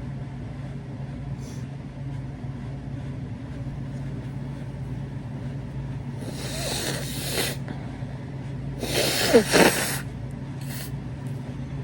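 A person sneezing: a breathy build-up about six seconds in, then one loud sneeze with a falling voiced cry about nine seconds in, with a couple of short sniffs around it. A steady low hum sits underneath.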